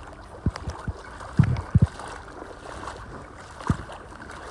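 Small wavelets lapping in shallow water at the shoreline and against a beached runabout's hull, giving a few short, low knocks and slaps, the loudest a cluster about a second and a half in.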